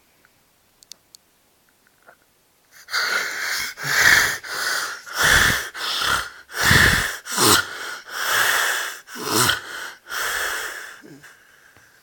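Snoring: after a few quiet seconds, about ten loud, rasping snoring breaths follow one another in quick succession, then it goes quiet.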